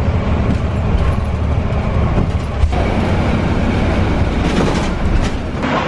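Interior noise of a moving bus: engine and tyres running with a steady low rumble.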